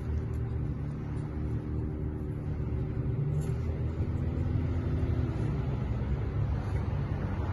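Steady low mechanical rumble like a running engine or machine, with a humming tone over it that fades out about five seconds in.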